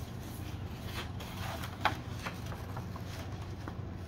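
Scissors snipping through construction paper in short, irregular cuts with some paper rustling, one snip sharper than the rest a little before the middle, over a low steady room hum.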